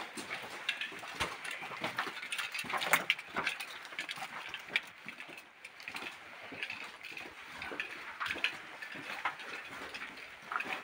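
Footsteps crunching over debris: a steady run of irregular crackles and clicks, with louder ones every half second or so.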